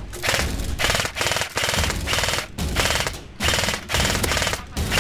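An airsoft gun firing full-auto in about seven short bursts, each half a second to a second long, with brief pauses between.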